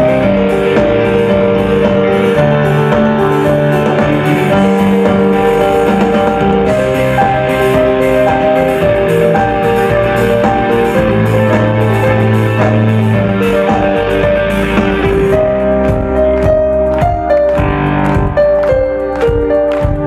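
A rock band playing live: sustained synthesizer-keyboard chords over a drum kit. About three-quarters of the way through, the high wash drops away and separate drum hits stand out.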